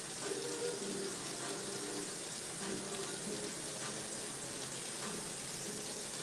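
A steady hiss of kitchen noise, with faint muffled pitched sounds beneath it that come and go.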